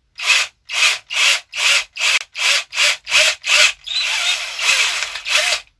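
A drill bit twisted back and forth by hand in the old rivet hole of a window-winder arm, reaming it out a little wider. It scrapes in rhythmic strokes about two and a half a second, then runs on as one continuous scrape for about the last two seconds before stopping abruptly.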